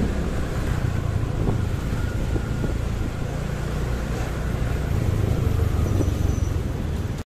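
City road traffic heard from a moving motorbike: a steady low engine and road rumble that cuts off suddenly near the end.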